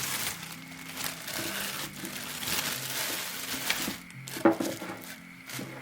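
Crunchy, rustling handling noise of hands preparing food, over quiet background music, with two sharp knocks near the end.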